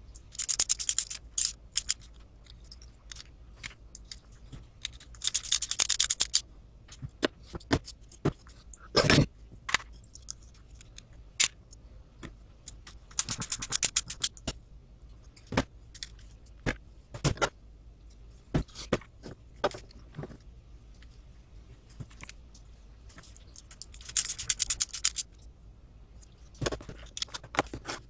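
Small screws being driven with a hand screwdriver into RC truck chassis parts: several short bursts of rapid clicking and scraping about a second long, between scattered clicks and knocks of small parts handled on a table. A louder thump comes about nine seconds in.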